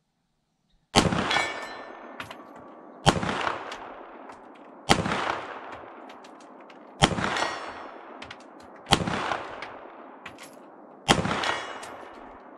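Six slow, aimed shots from a Canik SFx Rival 9mm pistol, about two seconds apart, each trailing off in a long echo.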